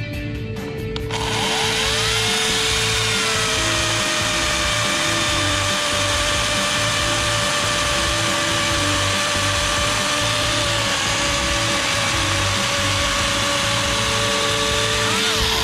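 Ozito 36V brushless cordless chainsaw starting about a second in. It spins up quickly with a rising whine, then runs at full speed with a steady whine and chain noise for about fourteen seconds, and cuts off near the end.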